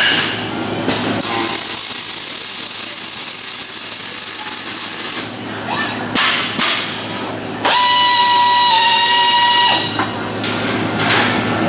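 Working machinery of a robotic welding cell: a long hiss, then a few short sharp bursts, then a steady high whine lasting about two seconds that steps slightly in pitch partway through.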